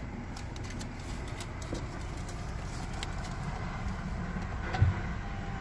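Car's engine running at low speed, a steady low rumble heard from inside the cabin, with a single thump about five seconds in.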